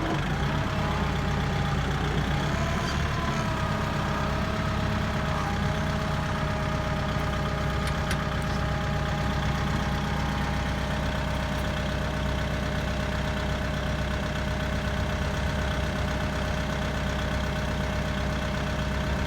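A vehicle engine idling steadily, with a low hum and a faint steady whine over it.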